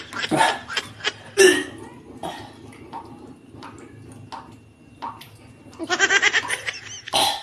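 A man's throat noises, gagging and coughing, with a sharp retch about a second and a half in, then a short burst of laughter about six seconds in.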